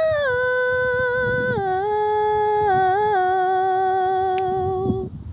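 A woman's voice humming a wordless melody in long held notes that step down in pitch. It breaks off shortly before the end.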